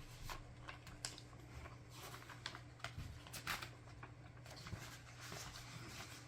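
Pages of a paper booklet being leafed through and handled: faint, irregular rustles and light taps.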